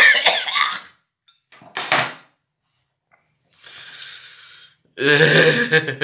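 A man's disgusted reactions to the taste of microwaved orange. There is a loud spluttering, cough-like burst at the start and a shorter one about two seconds in. Around four seconds comes a breathy exhale, and near the end a loud voiced groan.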